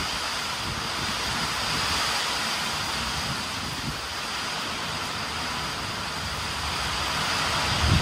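Heavy rain falling steadily, an even hiss, with wind gusting on the microphone in low rumbles, strongest at the very end.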